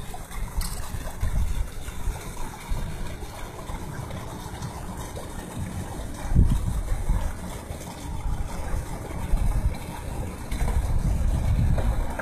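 Wind buffeting the microphone in irregular low gusts, strongest about six seconds in, over a faint steady hum.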